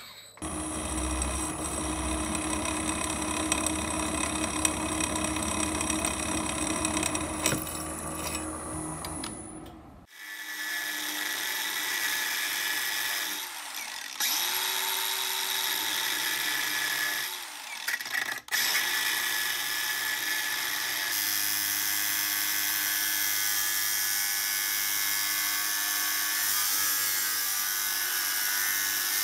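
Milling machine end mill cutting a steel box-section tube, a steady machining sound that stops abruptly about ten seconds in. Then a DeWalt angle grinder with a thin cut-off disc runs in a few short bursts, and from a little past halfway runs steadily, cutting into a steel bracket.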